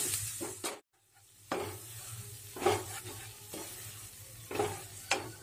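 A wooden spatula stirs and scrapes gram flour (besan) around a non-stick kadhai of hot ghee, giving irregular scraping strokes about once a second over a light sizzle. The sound drops out briefly just before a second in.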